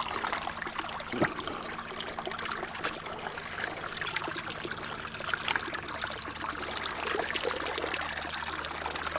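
Shallow stream water splashing and trickling as a cloth dip net made from a T-shirt is swept through it and lifted out, water pouring back through the fabric, with many small splashes throughout.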